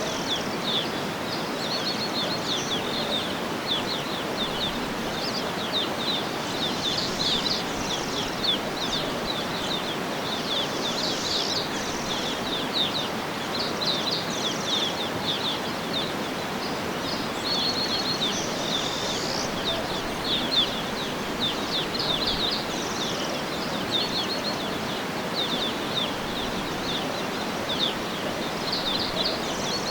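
Small birds chirping in quick repeated runs of short high notes over a steady, even background hiss of outdoor ambience.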